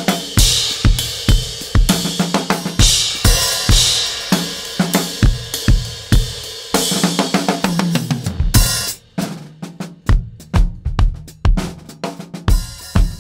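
Acoustic drum kit playing a New Orleans-style groove at 99 beats per minute, with kick drum, snare and cymbals. About nine seconds in, the cymbals drop out and the kick and snare carry on alone.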